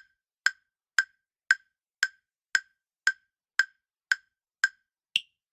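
Countdown-timer sound effect ticking about twice a second: ten even, woodblock-like ticks, then a last, higher-pitched tick that ends the answer time.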